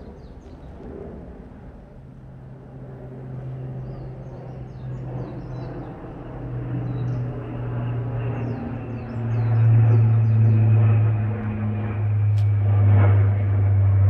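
Low, steady engine drone of an aircraft approaching overhead, swelling louder over several seconds, while small birds chirp in short high calls around it.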